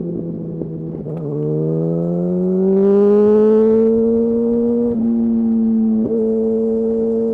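2008 Yamaha R1's inline-four engine under acceleration. The pitch dips about a second in, then rises steadily and holds at high revs, with two brief breaks near the end.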